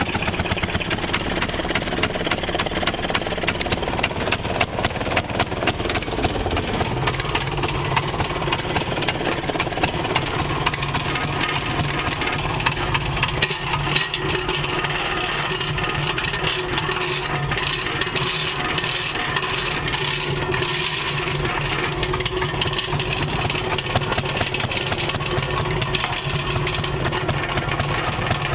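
Maytag Model 92 single-cylinder two-stroke washing-machine engine running steadily just after starting, a fast even run of firing strokes; its note drops and settles about six seconds in.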